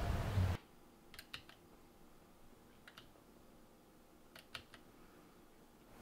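A few soft, scattered clicks of a computer keyboard in three small clusters in an otherwise quiet room. Outdoor background noise cuts off about half a second in.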